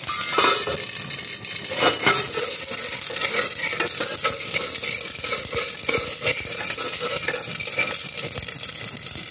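Flaxseeds crackling and popping as they dry-roast in a pan, with a spatula scraping and stirring through them. The crackle is the sign that the seeds are roasting. There are a couple of louder metallic knocks in the first two seconds as a steel lid is set on the pan.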